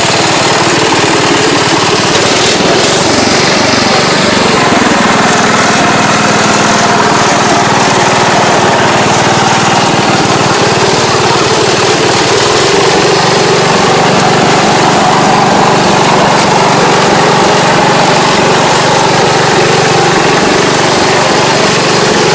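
Massey Ferguson riding lawn mower's small engine running loud and steady under load while its rear tyre spins in the mud.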